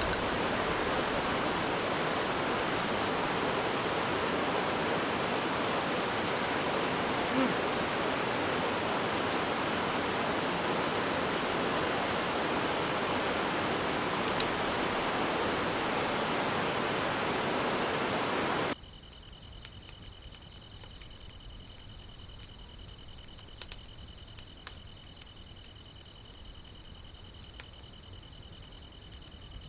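Steady rush of a mountain stream running high and strong with monsoon rain. It cuts off abruptly about two-thirds of the way through, leaving a much quieter background with a thin, steady high tone and light scattered ticks.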